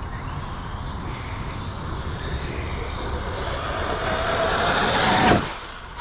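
Arrma Outcast 8S RC truck's brushless motor, an 1100kV motor on a Hobbywing Max5 G2 ESC, whining under throttle with tyre noise on dirt. The whine grows louder and climbs slightly in pitch, then cuts off abruptly about five seconds in as the throttle is let off.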